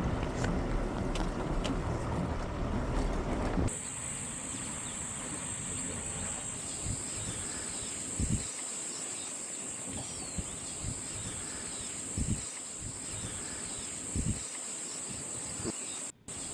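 Wind rumbling on the microphone. About four seconds in it cuts to a steady high-pitched insect drone with faint bird chirps and a few soft low thumps.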